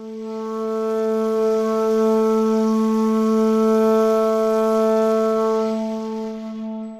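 A horn blown in one long, steady note with a breathy edge. It swells up over the first two seconds, holds, and fades away near the end.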